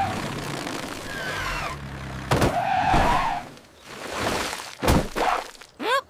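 Cartoon sound effects of a toy-like cement-mixer truck sliding down a gravel slope into a concrete pit: long cries that glide in pitch, with two sharp crashes, one about two seconds in and another near the five-second mark.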